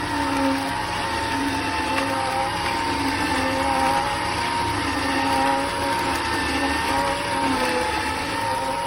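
Electric slow masticating juicer running with a steady motor whine, its pitch wavering slightly as it works.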